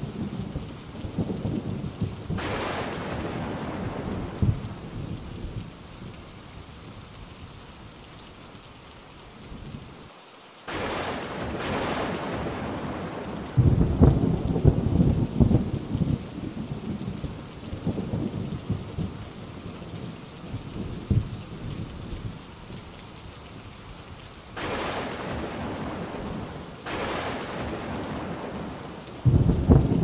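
Thunderstorm: steady heavy rain with rolling thunder. The loudest rumbles swell about halfway through and again near the end, and the sound briefly cuts out just after a third of the way in.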